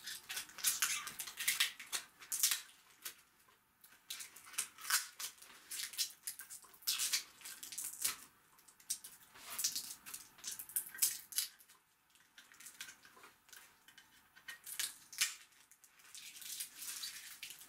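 Packaging being handled and pulled at, in irregular bursts of rustling and crinkling with short pauses between.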